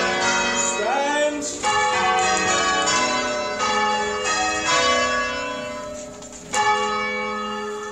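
Church tower bells rung full-circle from the ringing chamber in change ringing, each strike ringing on into the next, spaced unevenly with a short lull before a loud stroke near the end. This is the end of the touch, which the ringers judged to be getting a bit raggy.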